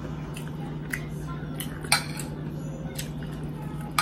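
Metal spoon and fork clinking and scraping against a dinner plate, a few sharp clicks with the loudest just before two seconds in, over a steady low hum.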